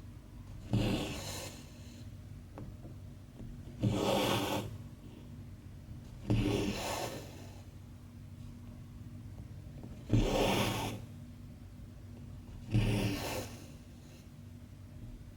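Embroidery floss being pulled through cross stitch fabric by hand: five pulls, each under a second, coming every two to three seconds.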